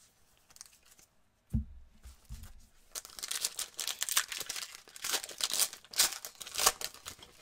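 A single thump about a second and a half in, then a trading card pack's wrapper being torn open and crinkled for several seconds.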